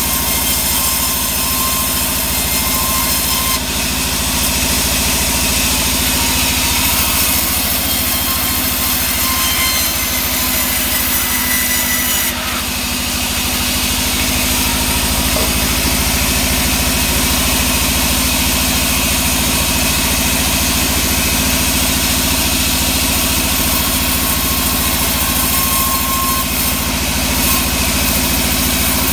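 Band sawmill running steadily, its blade ripping a plank of sengon wood lengthwise, with a hiss of cutting over the machine's steady drone.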